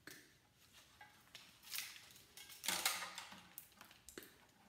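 Wire cutters snipping through wiring inside a tube TV, a scatter of sharp clicks with small rattles of parts being handled, several clicks coming close together about three seconds in.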